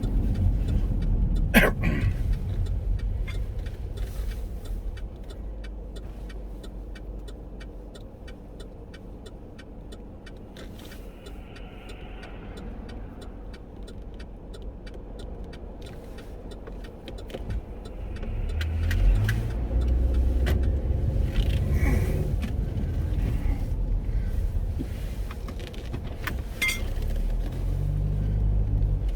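Chevrolet Captiva heard from inside the cabin, running at low speed with a steady low rumble, a click about a second and a half in and a regular faint ticking through the middle. From about two thirds of the way in the engine gets louder and its note shifts up and down in steps as the car is backed in.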